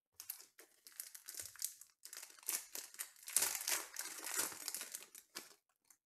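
Foil wrapper of a 2020 Panini Contenders Baseball card pack crinkling as it is torn open by hand, loudest a little past halfway.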